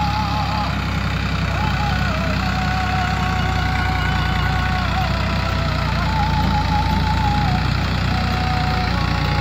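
New Holland 3630 tractor's three-cylinder diesel engine running steadily at low speed while hauling a trolley loaded with soil.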